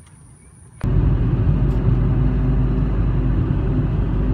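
Road and engine noise inside a moving car's cabin: a steady low drone that starts suddenly about a second in.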